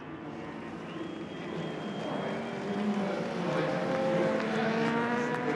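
Racing superbike engine at high revs, growing steadily louder over the first few seconds as the bike comes closer.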